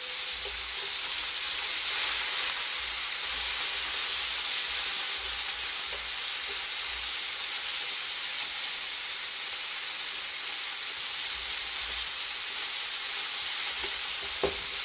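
Large prawns sizzling steadily in hot olive oil in a steel paella pan, with a couple of light clicks near the end.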